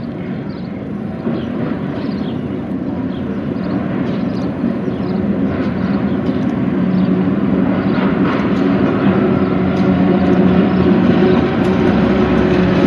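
Aurizon diesel freight locomotive approaching while hauling a container train. Its engine drone and hum grow steadily louder as it draws near.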